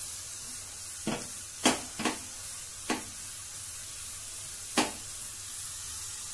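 Tadka of onion, whole coriander, cumin and dried red chillies sizzling steadily in desi ghee in a small tempering pan, just after asafoetida goes in. The utensil stirring it knocks sharply against the pan five times.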